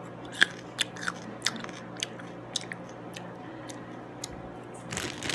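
Crunchy food being chewed close to the microphone: a run of sharp crunches about every half second for the first three seconds, sparser after, then a louder noisy burst near the end.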